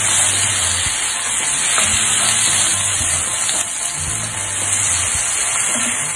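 Background music playing over chicken and curry leaves sizzling in a pan as they are stirred with a wooden spatula.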